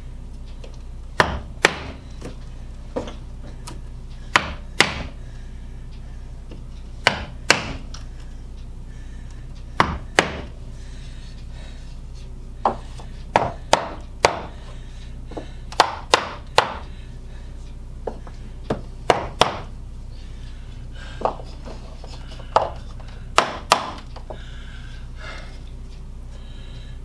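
Hammer blows on a wooden pad block, driving wooden window trim into the dado of a window sash. There are about two dozen sharp knocks, mostly in quick pairs, every couple of seconds.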